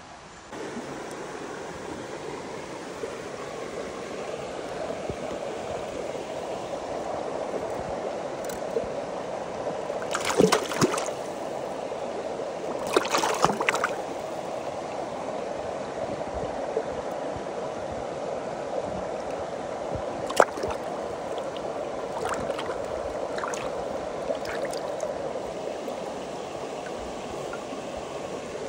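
Mountain stream running steadily, coming in suddenly just after the start. Short clusters of sharp clicks and knocks sound over it about ten, thirteen and twenty seconds in.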